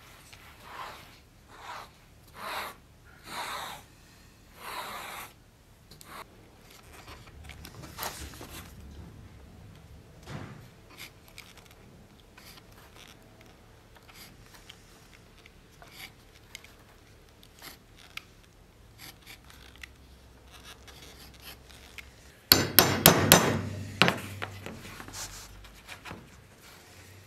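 Hand work on a leather-covered wooden scabbard core: a run of short rubbing strokes, scattered small handling clicks, then a quick burst of about five sharp knocks a little before the end.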